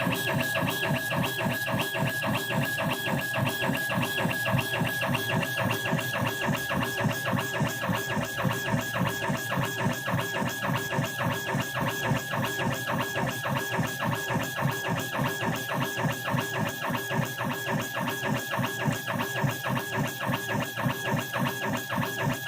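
Background music led by guitar, with a steady, fast beat.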